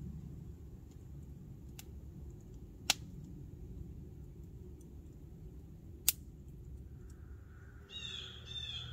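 Small campfire burning down to embers, the burning wood giving two sharp pops about three seconds apart over a faint low background. Near the end a bird calls twice.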